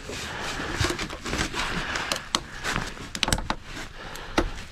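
Rustling, scraping handling noise with several sharp plastic clicks, as a snap-on coupler is worked onto blue corrugated ENT (Smurf tube) conduit.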